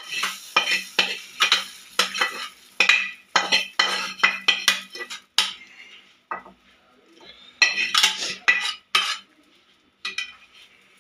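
Metal spatula scraping and clinking against a metal pan and a ceramic plate as egg bhurji is served out: a quick run of scrapes for about five seconds, then a second run about eight seconds in, and a few faint taps near the end.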